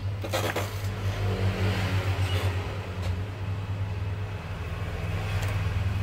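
A steady low hum, with a brief clatter about half a second in.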